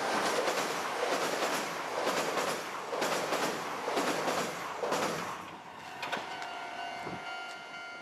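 Kintetsu Minami-Osaka Line electric train passing over a steel girder bridge, its wheels clacking on the rail joints, with typhoon wind buffeting the microphone. A little over five seconds in, the clatter fades and a steady multi-pitched tone takes over.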